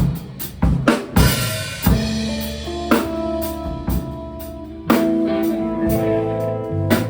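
Live band playing: a run of drum kit hits on bass drum and snare, then from about two seconds in held guitar and bass chords ring out, punctuated by single drum hits about every two seconds.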